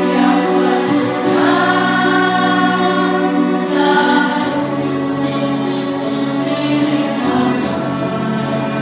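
A children's school choir singing a song together, with held notes and musical accompaniment.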